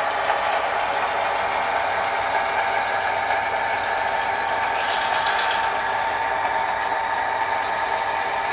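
Sound-equipped HO scale model diesel locomotive, its onboard speaker playing a steady diesel engine running sound as it moves, with a short hiss about five seconds in.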